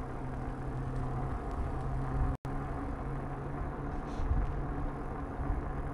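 A 500-watt electric fat bike riding on asphalt under throttle: a steady hum from the motor and fat tyres over a low rumble. The sound drops out for an instant about two and a half seconds in.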